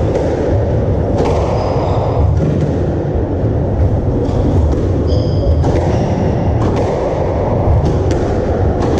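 Squash rally: the rubber ball is struck by rackets and thuds off the court walls at irregular intervals, with brief high shoe squeaks on the wooden floor. Under it runs a steady low rumble.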